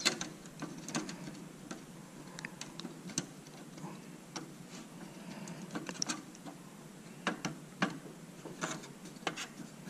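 Scattered small clicks and taps as hands work a quad-port Ethernet card into its slot in a thin-client PC's chassis.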